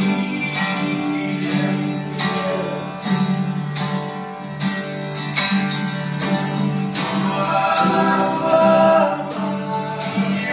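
Acoustic guitar strummed in a steady rhythm, accompanying a man singing; the voice is loudest around eight to nine seconds in.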